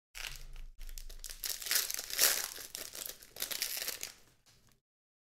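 Foil wrapper of a Panini Prizm football card pack crinkling and tearing as it is pulled open by hand, loudest a little over two seconds in.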